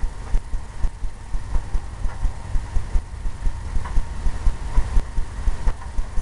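A paintbrush scrubbing and tapping oil paint onto a stretched canvas, making a rapid, uneven run of dull thumps, several a second, with faint clicks.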